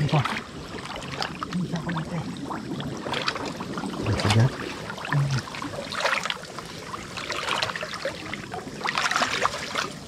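Water splashing and sloshing as a person wades deep through a creek, in irregular surges every second or two.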